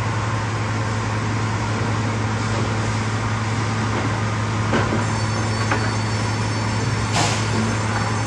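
Sawmill conveyor machinery running with a steady low drone. A few short knocks and clatter of boards land over it, and a brief hiss comes about seven seconds in.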